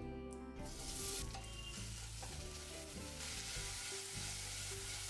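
Diced cubes frying in hot oil in a stainless steel frying pan: a steady sizzle that starts about half a second in, over soft background music.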